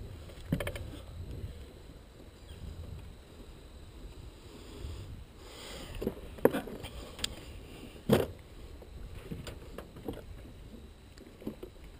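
Bumps and knocks of people moving and handling gear in a small jon boat: a few sharp knocks, two of them loud, over a low rumble.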